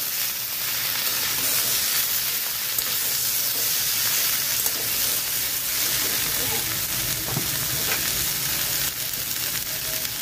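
Potato and brinjal pieces with ground spice paste frying in oil in a steel kadai on low flame, sizzling steadily while a metal spatula stirs and scrapes them against the pan.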